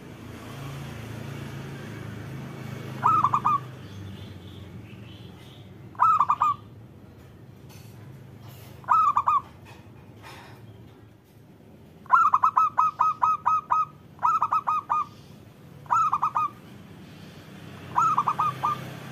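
Zebra dove (perkutut) cooing: short bursts of quick, clipped coos every two to three seconds, with one longer run of about eight notes near the middle.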